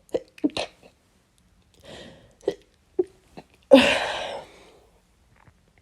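A person working up to a sneeze with several short, sharp catching breaths, then sneezing once, loudly, about four seconds in, the sneeze trailing off.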